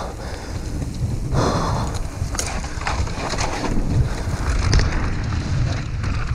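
Mountain bike running fast down a dirt singletrack: wind buffeting the action camera's microphone as a constant low rumble, with tyres on dirt and the bike rattling and clicking over bumps.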